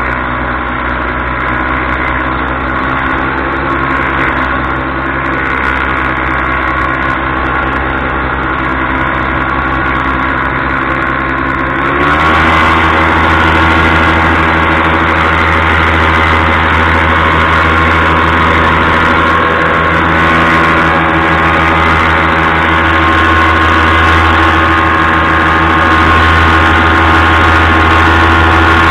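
Paramotor engine and propeller running steadily in flight. About twelve seconds in, the engine note steps up, running higher and a little louder.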